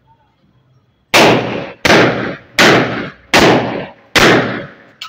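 Five single gunshots from a locally made MP5-copy rifle fired on semi-automatic, evenly spaced about three-quarters of a second apart, each with a short echoing tail.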